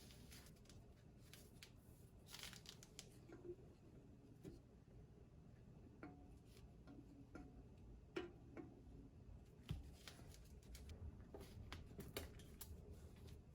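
Faint handling sounds of espresso-machine boiler parts being fitted back together: light clicks, rubs and scrapes, with a couple of sharper knocks about eight and ten seconds in.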